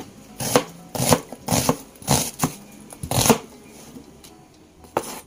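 Kitchen knife cutting through a red onion onto a plastic cutting board. About six crisp, uneven cuts come roughly half a second apart, then the cutting thins out, with one more cut near the end.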